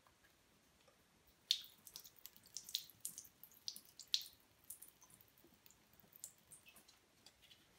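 Water forced by a hand-pushed syringe through a small test filter, spattering and dripping faintly into a sink: a quick run of small drips and splashes that starts about a second and a half in, is thickest for the next few seconds, then thins out.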